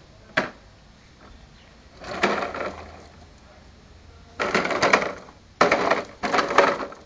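A child's plastic toy dump truck and plastic shovel clattering and scraping on rough concrete: one sharp click, then four rattling, scraping bursts of about a second each, the last three close together.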